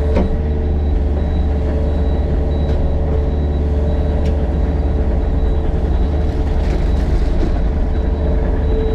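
Yanmar mini excavator's diesel engine running steadily at working speed as the machine grades dirt with its bucket, with a few faint clicks.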